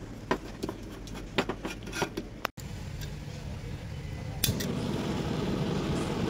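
Several sharp metal clicks as the stove and gas fittings are handled, then one loud click about four and a half seconds in as the multi-burner camping gas stove is lit, after which its burners run with a steady rush of burning gas.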